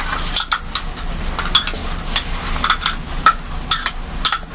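Metal spatula scraping and clinking against the inside of a small glass beaker in quick, irregular strokes, scraping a damp solid out onto filter paper.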